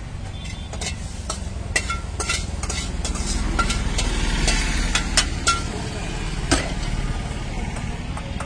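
Battered chicken lollipops frying in a kadai of hot oil: a sizzle with many scattered crackles and pops, over a steady low rumble.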